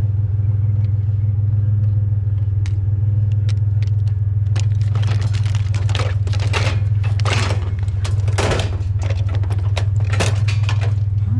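Pickup truck engine running with a steady low hum, while scrap metal clatters and clanks in rapid, irregular knocks through the second half.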